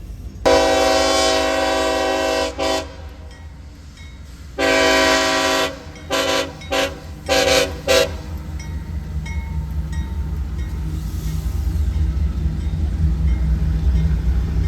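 Locomotive air horn sounding a chord in a horn-show pattern: a long blast, a short one, another long blast, then a quick string of short toots. After the horn the train's low rumble grows steadily louder.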